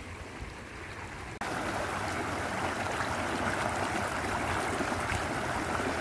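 Shallow creek water running over stones, a steady rushing that jumps suddenly louder about a second and a half in.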